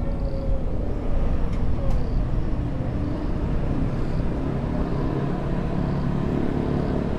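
City road traffic: a steady rumble of passing motor vehicles, with faint engine hum.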